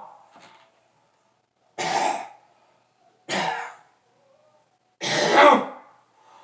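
A man coughing and clearing his throat in three short bursts, the last one the longest and loudest.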